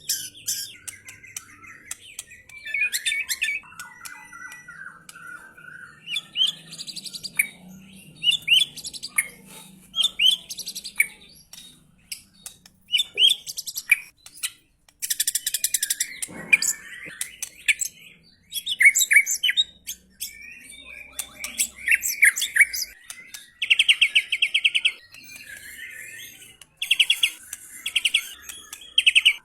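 White-rumped shama (murai batu) singing a string of varied phrases, with harsh, buzzy notes and fast rattling trills, especially in the second half.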